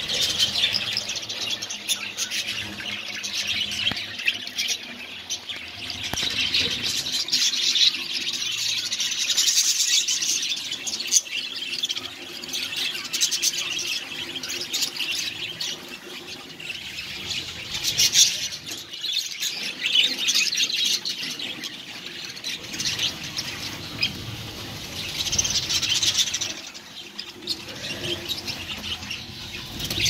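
A colony of budgerigars chattering and chirping all at once: a dense, continuous warble of many overlapping calls, with a few louder swells.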